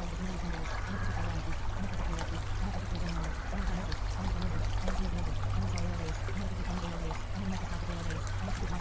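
Steady running water like a stream, laid over a constant low hum and a pattern of short, changing low notes underneath.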